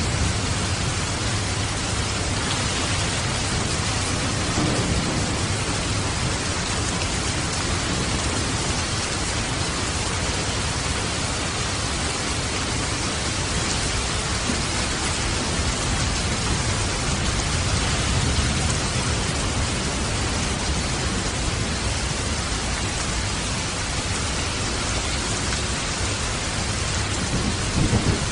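Waterfall rushing steadily together with rain, a dense even hiss over a deep low rumble that swells a little now and then.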